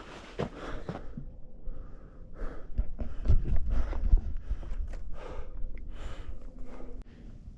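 A hiker's footsteps on a rocky trail, irregular steps with heavy breathing, and a heavier low rumble about three to four seconds in.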